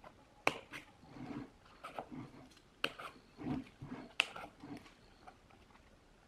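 Thin white centering shims being pulled one by one out of a woofer's voice-coil gap: three sharp clicks with rustling and scraping in between.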